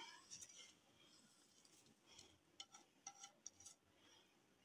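Near silence, with a handful of faint, light clicks through the middle.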